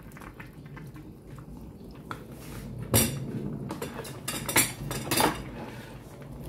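Kitchenware clinking and knocking: a sharp clink about three seconds in, then two more just before and just after five seconds.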